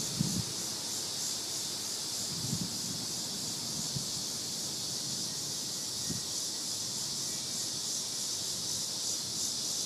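Cicadas droning in a steady high-pitched chorus, with a faint pulsing. A few brief low bumps of wind on the microphone break in, one right at the start.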